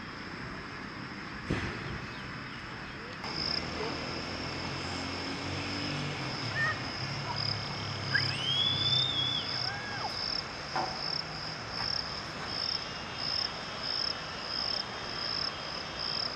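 Outdoor park ambience: an insect calls in high buzzing pulses, a little over one a second, starting about three seconds in. Around the middle a whistle sweeps up and falls back, over a low background hum.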